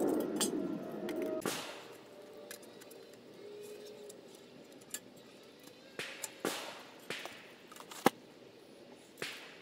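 Corrugated galvanized steel raised-bed panels being handled and laid on grass: a ringing, rattling clatter for the first second and a half, then scattered light knocks and clinks, the sharpest about eight seconds in.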